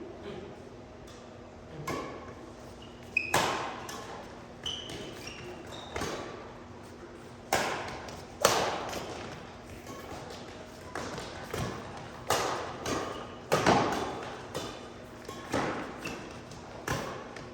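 Badminton rally: rackets striking the shuttlecock in sharp cracks, irregular and about one a second, each ringing briefly in the hall. Short high squeaks come between the hits.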